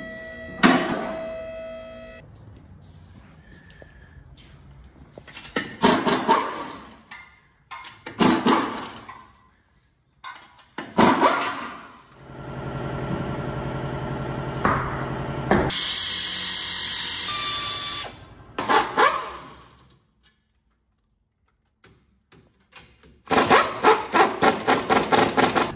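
Auto-shop tool work under a Jeep: scattered clanks and short tool runs, a steady machine run of a few seconds midway, then a hiss of air. Near the end a pneumatic impact wrench hammers in rapid bursts, undoing the leaf-spring plate nuts.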